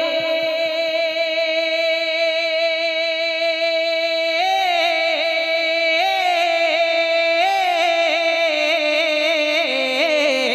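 A man's voice singing a naat unaccompanied, drawing out one syllable as a long melisma. He holds a single steady note for about four seconds, then moves through wavering melodic turns, and the pitch steps down near the end.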